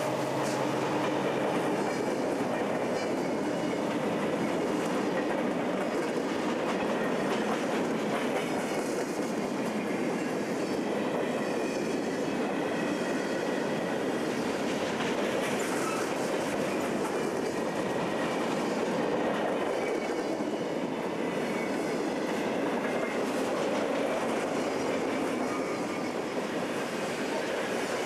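Freight cars rolling steadily past on the rails, a mix of covered hoppers, boxcars and a tank car, with the wheels clicking rhythmically over the rail joints.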